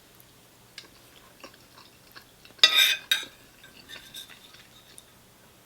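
Eating sounds: a fork clicking and scraping against a ready-meal tray, with quiet chewing. The loudest is a short scrape a little under three seconds in, followed by another click.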